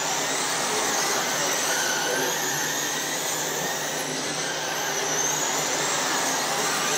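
A pack of RC cars racing on a dirt oval: the steady whir of their 12-turn electric motors and drivetrains, with thin whines that slide up and down in pitch as the cars speed up, slow and pass.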